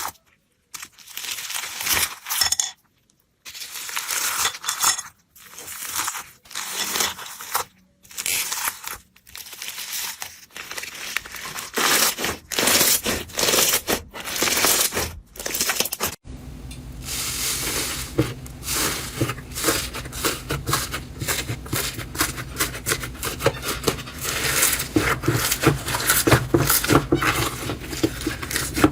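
Slime squeezed and pressed by hand, crackling and popping. For the first half it comes in short bursts with brief silent gaps. After a cut about halfway through, the crackling turns dense and continuous over a low hum.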